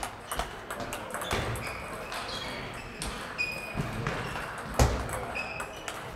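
Table tennis balls clicking off bats and tables, many quick hits from several rallies going at once, with faint voices behind. A single louder low thump about five seconds in.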